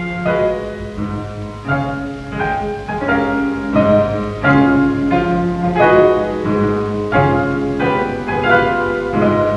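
Instrumental film-score music: a piano playing a melody of struck notes, about two a second, each ringing and fading.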